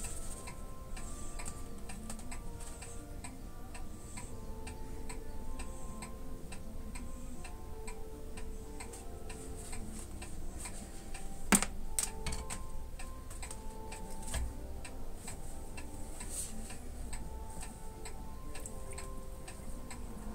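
Soft background music with a steady, quick clock-like ticking beat. About halfway through there are two sharp clicks half a second apart.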